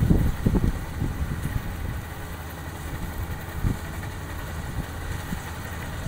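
Rice combine harvester's engine running steadily as it works through the crop, with stronger gusts of low rumble in the first second or so.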